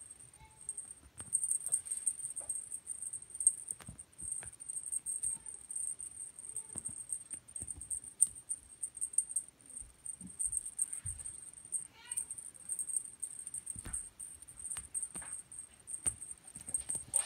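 A British kitten's paws and a feather teaser toy scuffling and tapping irregularly on a quilted bedspread, over a steady high-pitched whine.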